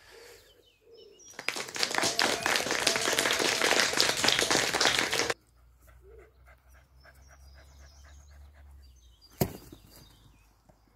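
A dog panting loudly close to the microphone for about four seconds, stopping abruptly. A single sharp click near the end.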